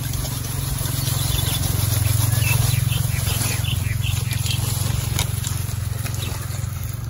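Grass and leafy plants rustling and crackling as someone pushes through undergrowth, over a steady low hum.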